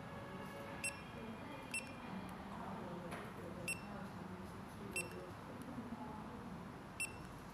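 Wrist pager watch beeping as its side keys are pressed: five short, high key-press beeps at uneven intervals.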